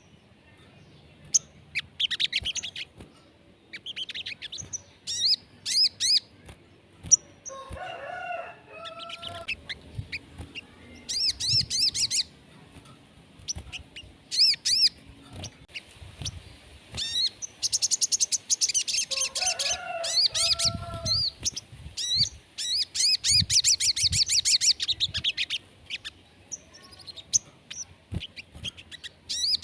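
Sogon songbird singing: repeated bursts of fast, high, trilling chirps with short gaps between them. A lower, rounder call cuts in twice, about eight seconds in and again near twenty seconds.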